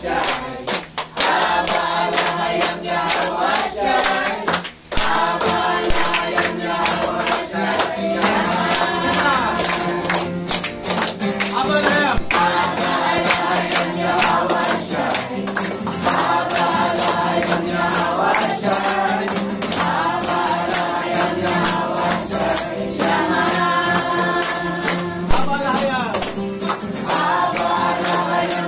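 A small congregation singing a praise chorus together and clapping their hands to the beat throughout.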